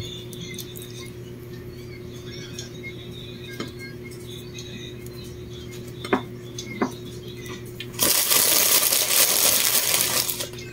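A few light clinks of kitchen utensils against dishes, spaced seconds apart, over a steady low hum. Near the end, a loud rushing hiss lasts about two seconds and then stops.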